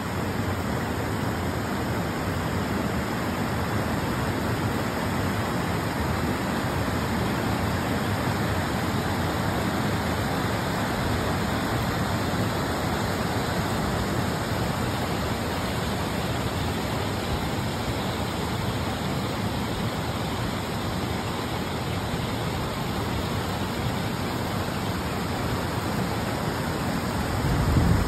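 Mountain river rushing over boulders and small cascades: a steady, even roar of white water. A brief low thump near the end.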